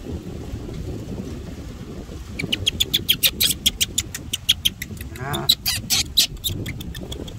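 Baby macaque squealing in a rapid string of short, high-pitched cries, about five a second, starting a little over two seconds in, with one longer wavering cry in the middle. Low wind noise on the microphone runs underneath.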